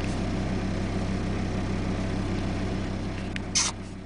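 A vehicle engine idling steadily with a low hum, and a brief hiss about three and a half seconds in.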